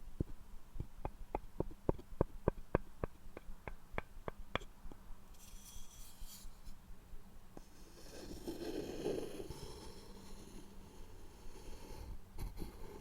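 A run of light, evenly spaced taps on wood, about three a second, for the first four seconds or so. Then scratching and rubbing on a wooden surface.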